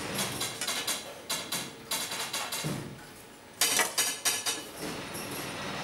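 Quick, light metallic taps and clicks, several a second, from hands working a hair tuft and a small brass ferrule on a brush-maker's bench. After a short lull past the middle the taps come louder and closer together.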